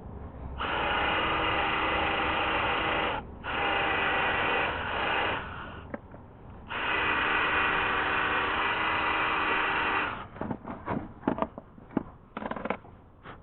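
Small electric power tool running in three steady bursts of a few seconds each, followed by a run of short clicks and knocks.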